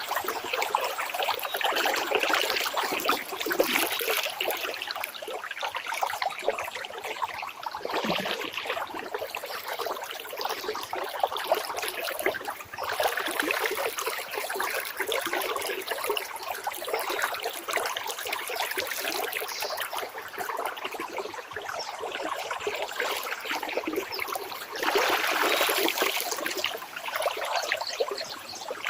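Water trickling and running steadily, like a small stream, with a louder stretch of splashing near the end.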